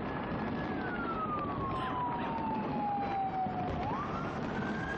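A siren wailing over the steady crackle and bang of a large fireworks display. Its pitch holds high, slides slowly down for about three seconds, then sweeps quickly back up near the end.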